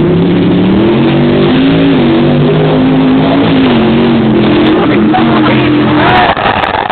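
A vehicle engine revving hard on the dirt arena track, its pitch wavering up and down, then falling away about six seconds in.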